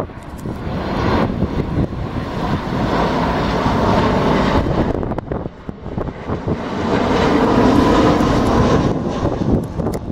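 Arriving airliner's engines, a dense rumbling roar that grows loudest in the second half, with wind buffeting the microphone.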